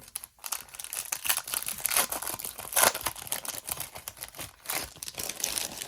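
Wrapper of a Topps baseball card pack being torn open and crinkled by hand: a dense run of crackles and rips, loudest about two and three seconds in.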